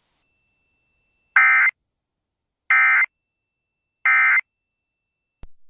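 Emergency Alert System End of Message signal: three short bursts of SAME digital data tones, each under half a second and about a second and a half apart, closing the EAS test.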